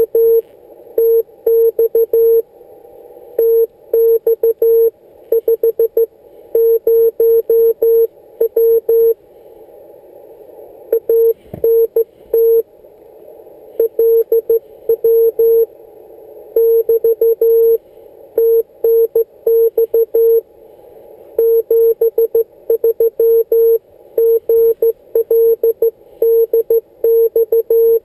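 Morse code from a Yaesu FT-817ND transceiver: a single tone keyed on and off in dots and dashes, sent slowly in groups with short pauses between them. A band of receiver hiss fills the gaps, and there is a brief low thump a little before halfway.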